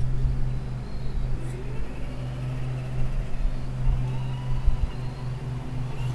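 Traxxas K5 Blazer RC crawler's electric motor and gearbox running, a faint whine that rises and falls in pitch, over a steady low hum with irregular low thumps.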